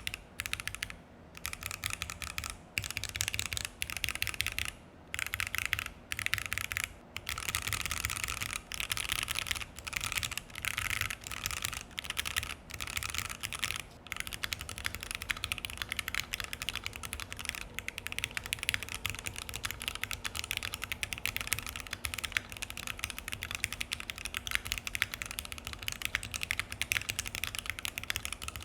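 Mechanical keyboard typing: a Keychron Q1 with an FR4 plate, Akko Jelly Black linear switches and ePBT keycaps, keys struck in quick runs. During the first half the runs break off in short pauses; after that the typing is unbroken.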